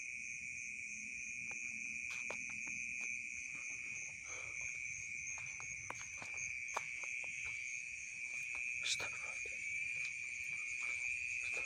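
Night insect chorus of crickets: one steady high trill with a second, higher trill pulsing rapidly above it, with scattered faint clicks and rustles.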